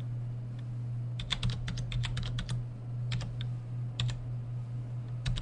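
Keystrokes on a computer keyboard as digits of an IP address are typed in: a quick run of key clicks about a second in, then a few single taps, over a steady low hum.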